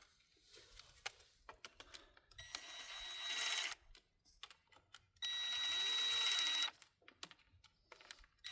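Electric driver with an 8 mm socket running the small bolts of an ATV's oil filter housing cover back in: two steady whirring runs of about a second and a half each, with small metal clicks and taps between them.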